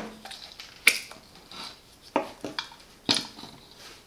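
Sharp plastic clicks and knocks, three louder ones about a second apart, as the dust container of a Silvercrest SHM A1 cordless handheld vacuum is unlatched and opened.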